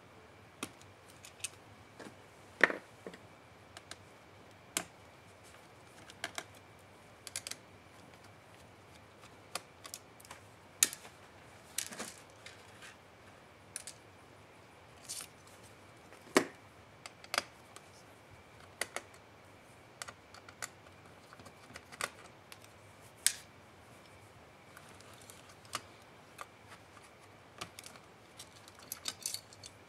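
Scattered light clicks and taps of a small screwdriver, screws and parts against a laptop's open plastic and metal chassis and the workbench, irregular and about one every second or two. A faint steady high tone sits underneath.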